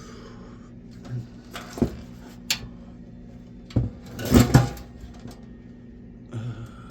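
Scattered knocks and clanks of an old desktop computer's metal case and parts being handled on a workbench during teardown, loudest in a cluster a little past the middle.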